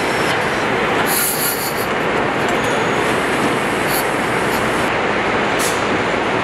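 Steady, dense machinery noise of a pickup-truck assembly line, with short high-pitched hissing bursts about a second in, again near four seconds and near five and a half seconds.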